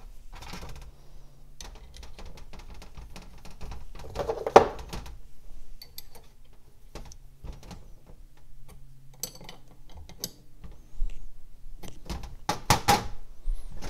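Small metallic clicks and scrapes as brake bleeder screws are fitted by hand into the aluminium master cylinder of a 1973 Datsun 240Z on a sheet-metal workbench. One louder knock comes about four and a half seconds in, and a few sharp clicks come near the end, over a faint steady hum.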